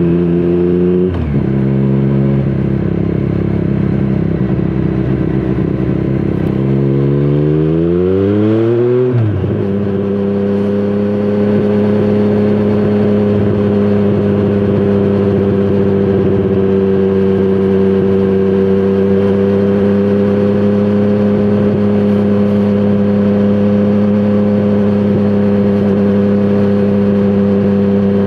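2017 Triumph Street Triple 765 RS's three-cylinder engine through a Scorpion Serket Taper carbon exhaust. The note drops suddenly about a second in and holds, climbs for a couple of seconds, then falls sharply about a third of the way through and runs at one steady pitch after that.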